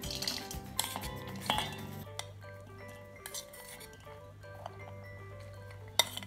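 A steel spoon scraping and clinking against stainless steel bowls as boiled corn kernels are scooped from one bowl into the other. There are irregular clinks, with the sharpest one near the end, over background music.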